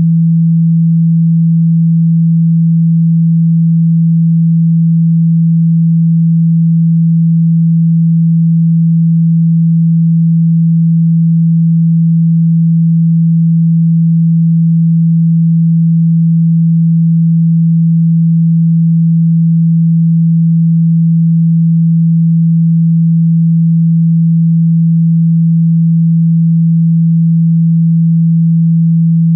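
Steady, loud 165 Hz pure sine-wave test tone, a single low hum with no overtones and no change in pitch or level. It is played at full volume through a phone speaker to vibrate water and dust out of it.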